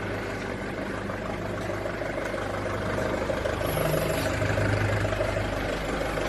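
Lonking forklift engine running steadily at idle, a little louder about four seconds in.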